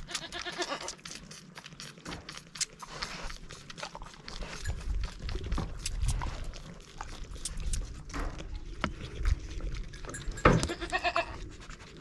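Baby goat kids bleating at bottle feeding: several short bleats, the loudest one near the end.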